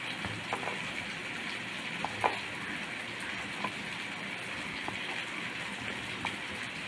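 Steady sizzle of onions and whole spices frying in coconut oil, with a few light knife taps on a wooden cutting board as a block of paneer is cut into cubes.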